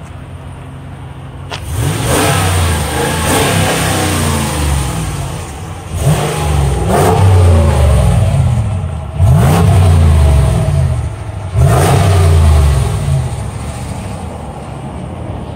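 2017 Ram Rebel pickup's exhaust: the engine idles, is revved four times, each rev held for a second or two before falling back, then settles to idle near the end.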